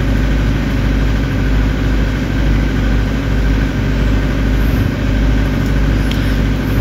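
An engine running steadily in the background, a constant drone that does not change.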